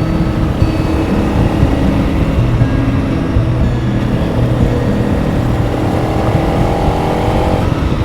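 Honda CRF 300 Rally's single-cylinder engine running under way, with road and wind rumble; the engine note holds steady tones that shift in steps, and the higher tones cut off about seven and a half seconds in.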